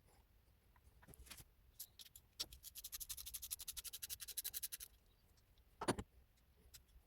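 Ratchet wrench clicking fast and evenly for about two seconds as a fastener is spun, with a few scattered taps before it. A single sharp knock comes near the end.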